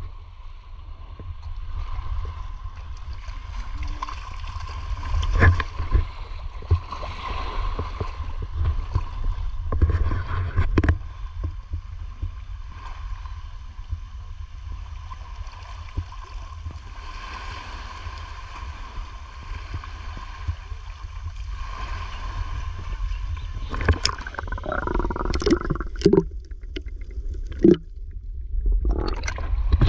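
Water swirling and gurgling against the microphone, with a strong low rumble and a faint steady tone. A cluster of louder knocks and clatter comes near the end.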